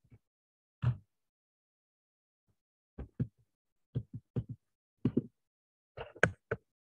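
About a dozen short, muffled thumps and taps at irregular intervals, heard through a video-call microphone that cuts to dead silence between them; the loudest come about a second in and near the end.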